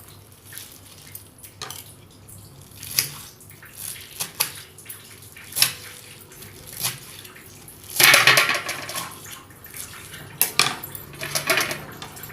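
Knife chopping fresh fenugreek leaves, irregular sharp knocks roughly once a second, with a louder noisy burst lasting about a second around eight seconds in.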